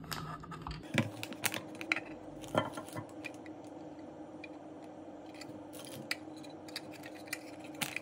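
Scattered small clicks and light scrapes of a precision screwdriver on the screws of a small camera housing and of the housing being opened and handled, with the clicks thickest in the first three seconds, over a faint steady hum.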